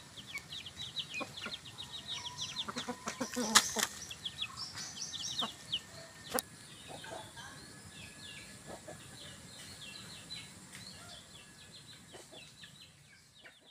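Backyard chickens foraging: a long run of short, quick, high chirps with a few sharp knocks, the loudest about three and a half seconds in, all fading away near the end.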